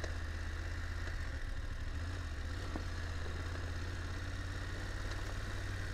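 BMW F850GS Adventure's parallel-twin engine running steadily as the bike rides along at an even pace, a low, unchanging rumble.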